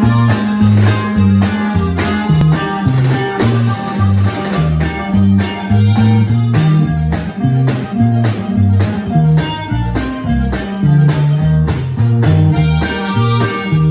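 Norteño band playing live: button accordion, electric bass, acoustic guitar and snare drum over a steady beat, with the bass stepping back and forth between notes.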